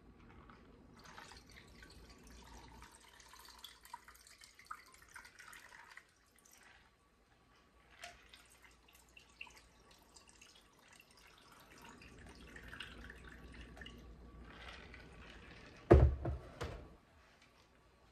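Iced tea poured from a glass pitcher full of ice into two ice-filled stemmed glasses, one glass after the other with a short pause between. Near the end a loud thump, the pitcher set down on the counter.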